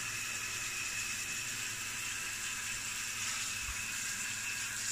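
Water running and splashing over a silk screen as it is rinsed clean of water-based ink, a steady hiss.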